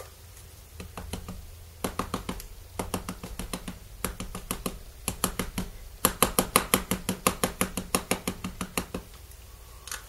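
Rubber stamp being inked on a plastic-cased ink pad: a long run of small sharp taps and clicks, scattered at first, then fast and louder from about six seconds in until about nine seconds.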